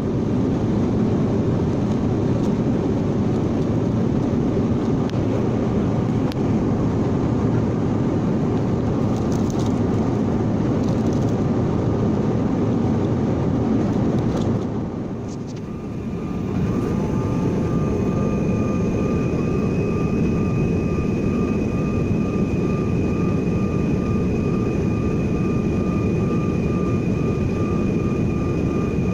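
Jet airliner engines and airflow running as a steady, dense noise. The noise dips briefly about fifteen seconds in, then comes back with a steady high whine on top.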